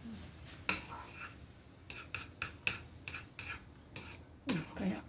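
Chopsticks stirring egg soup in a ceramic saucepan, tapping and clicking against the pot's sides in a quick, irregular run of knocks.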